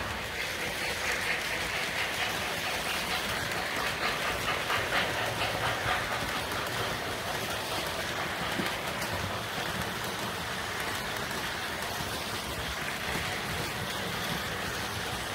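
O gauge model freight train rolling past on three-rail track: a steady rattling rumble of the cars' wheels, with quick clicks over the track joints, busiest in the first few seconds.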